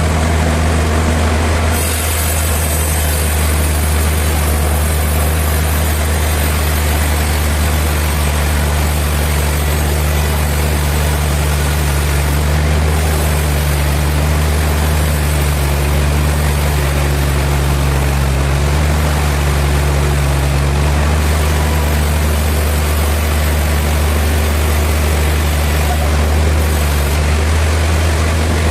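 Heavy sawmill machinery running: a steady low engine drone under a dense mechanical din. A high hiss comes in about two seconds in and stops near the end.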